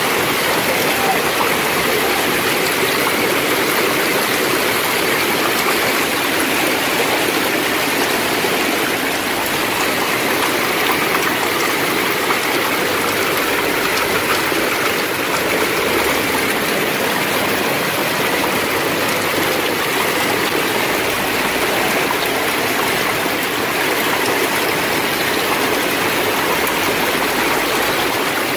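Heavy hail and rain pouring down onto pavement and parked cars during a severe hailstorm: a dense, steady rushing hiss that never lets up.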